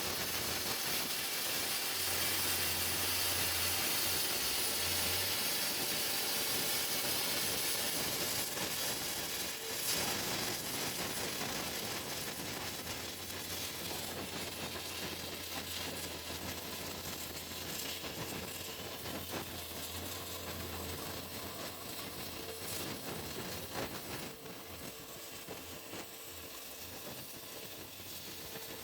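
CNC plasma cutter cutting metal: a steady hiss from the arc and air jet over a low electrical hum that breaks off briefly a few times, easing slightly toward the end.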